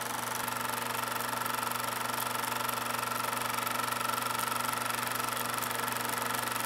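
16 mm film projector running: a steady, fast mechanical clatter from the film transport over a constant hum.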